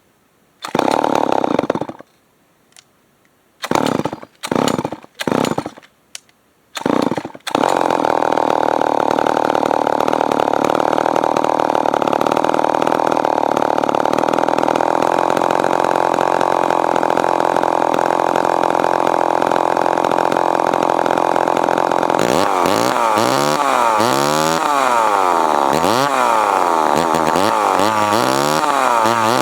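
Remington SL9 chainsaw's two-stroke engine firing in a few short bursts as it is pull-started, then catching about seven seconds in and running steadily. From about 22 seconds on, the throttle is worked, revving the engine up and down repeatedly.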